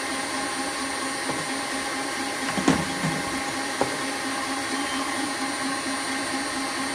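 KitchenAid Classic stand mixer running steadily, its motor humming as it churns dry bath-bomb powder in a steel bowl under a cheesecloth cover. A single knock sounds about two and a half seconds in, with a small click a second later.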